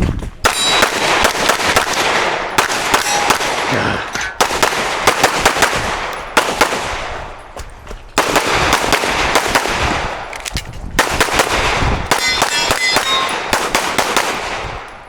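9mm Glock 47 pistol fired in fast strings of shots with short pauses between them, a competition stage being shot. Some hits are answered by the ringing clang of steel targets.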